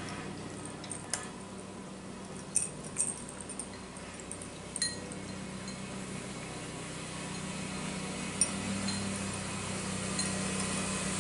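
A cat eating from a ceramic food bowl: sparse sharp clinks against the bowl, several in the first half and one more later, over a steady low hum.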